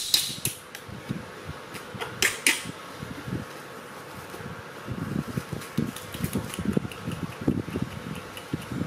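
Steady electric fan hum, with a baby macaque's brief high-pitched screeches right at the start and again about two seconds in. Soft rustling follows later as the disposable diaper is handled.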